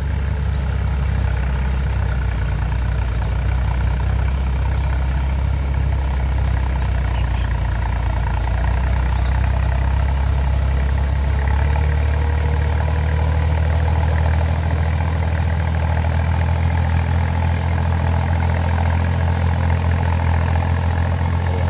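A small farm tractor's engine runs steadily under load as the tractor, on cage wheels, drags a leveling board through flooded paddy mud.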